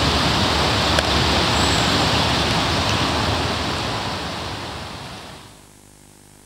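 Wind rushing over a camcorder's built-in microphone, a steady noise with one light click about a second in. The noise fades away over the last two seconds, leaving only a faint low hum.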